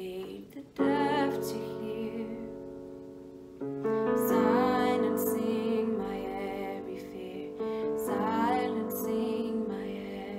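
A woman singing a slow worship song over sustained piano chords, her held notes wavering with vibrato. The chords change about every three to four seconds.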